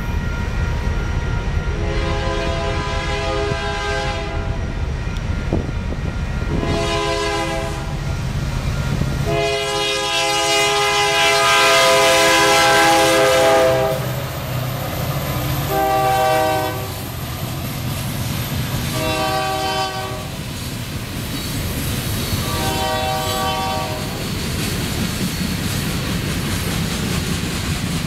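Union Pacific SD9043MAC locomotive's air horn sounding a series of blasts at a grade crossing, the longest and loudest about ten seconds in as the locomotives go by, over the rumble of the diesel engines. The trailing covered hopper cars then rumble and clack past between the last, shorter blasts.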